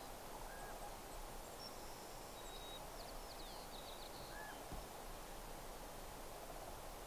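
Faint outdoor ambience: a steady soft hiss with distant small bird calls, a cluster of thin high chirps about two to four seconds in and a short call repeated twice, about four seconds apart.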